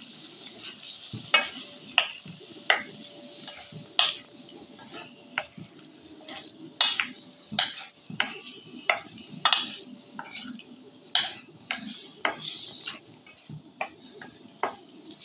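Metal spatula stirring chunks of gaderi (large colocasia root) through masala in a metal kadai, clinking and scraping against the pan roughly once or twice a second in an uneven rhythm, over a light sizzle.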